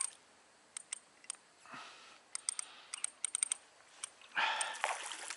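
Scattered sharp clicks from a spinning reel's mechanism while a hooked fish is played, a few a second and bunching in the middle. About four seconds in comes a louder rush of breath.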